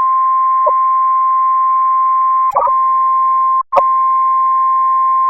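NOAA Weather Radio warning alarm tone at about 1050 Hz, signalling that a severe weather warning follows: one steady, loud tone over radio hiss. A click breaks it about halfway, and it cuts out for a moment about two-thirds of the way through before carrying on.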